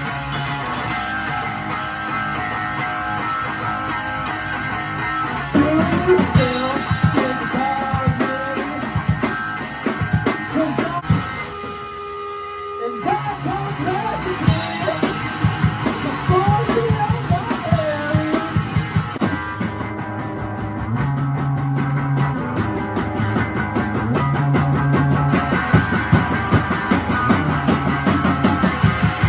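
A rock band playing a song: guitar and drum kit with a sung melody over them. The music thins to a brief break about twelve seconds in, then carries on.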